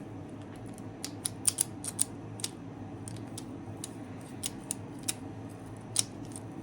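Irregular sharp small clicks and taps of hand tools on metal, from working the head badge off a bicycle frame, louder and quicker about a second in, with another sharp click near the end. A steady low hum runs underneath.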